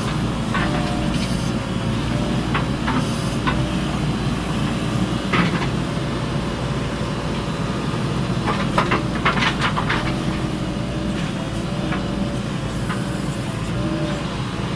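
JCB backhoe loader's diesel engine running steadily while the machine works, with scattered knocks and clanks and a quick run of them about nine seconds in.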